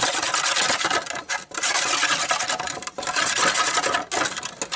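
Aluminium scooter piston being swished and rubbed by hand in a metal bowl of foamy liquid: continuous wet scrubbing and sloshing, broken by a few brief pauses between strokes.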